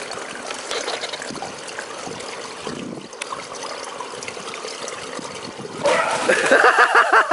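Swimming-pool water lapping and trickling, then a loud splash about six seconds in as a swimmer bursts up out of the water, followed at once by a person laughing in quick repeated bursts.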